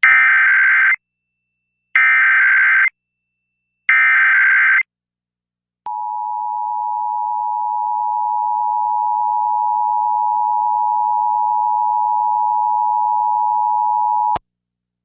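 Emergency Alert System tones. First come three one-second bursts of SAME header data, about two seconds apart. After a short pause comes the EAS two-tone attention signal: a steady dual-tone note that swells slightly over its first couple of seconds, then cuts off suddenly after about eight and a half seconds.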